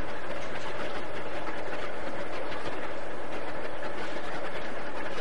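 Soviet T-72 tank driving along a paved street, its steel tracks clattering continuously over the drone of its diesel engine.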